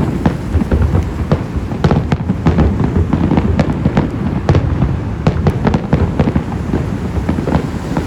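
A fireworks display going off: rapid, overlapping bangs and crackles over a continuous low rumble of booms.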